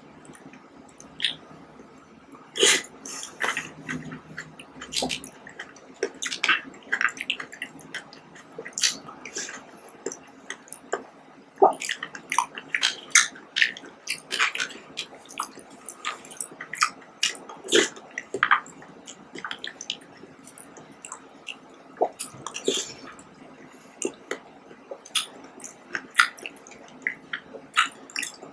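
Close-up wet eating sounds: fruit jelly with grapes and pineapple being chewed and squished in the mouth, with a spoon scraping and tapping the plastic cup. The sound is a steady run of many short, sharp clicks and squelches.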